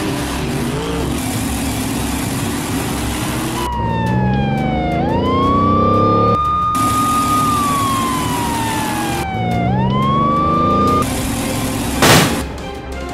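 Police car siren sound effect wailing, its pitch twice sliding slowly down and sweeping quickly back up, over a vehicle engine that revs up. About twelve seconds in comes one loud crash, a monster truck landing on the police car.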